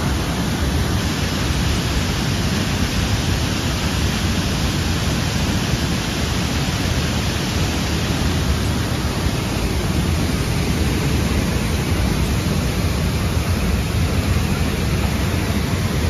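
Large waterfall and the churning river below it: a steady, even rush of falling water.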